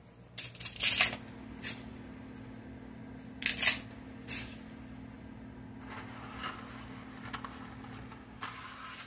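Dry spaghetti being snapped into pieces by hand, a run of sharp cracks about a second in and another cluster around the middle, with a few lighter snaps between. Near the end, a short dry rattle as the last of the spaghetti is shaken out of its box.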